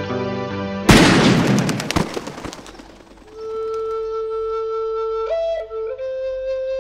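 A single handgun shot about a second in, cutting off the background music and dying away over a couple of seconds. It is followed by a slow solo flute melody of long held notes.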